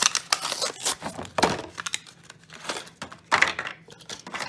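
Plastic and cardboard blister packaging of a Hot Wheels die-cast car being torn open and crinkled by hand, in irregular crackling rips.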